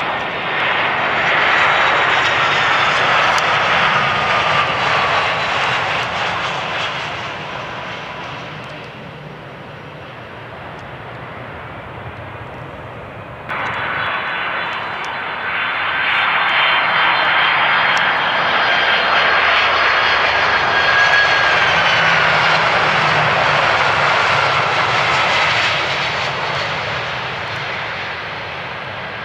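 Jet airliner engines passing close by: a loud roar with a high whine that slides down in pitch as the aircraft goes past. About 13 seconds in, the sound jumps abruptly and a second loud pass builds, then fades with its whine falling near the end.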